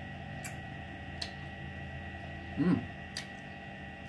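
A few light clinks of a metal fork and spoon against a ceramic bowl while eating, with a short hummed "mm" from the eater about two-thirds of the way through. A steady electrical hum underlies it.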